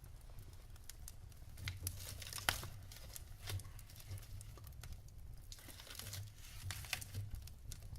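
Wood fire crackling in a fireplace: irregular sharp pops and snaps over a low steady rumble, with one louder pop about two and a half seconds in.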